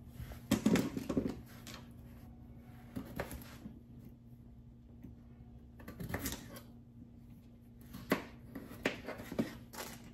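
Small yellow potatoes clattering in a plastic bowl as they are handled about half a second in, then a kitchen knife cutting them on a plastic cutting board in short sharp taps, a few scattered ones and then a quicker run near the end. A faint steady hum runs underneath.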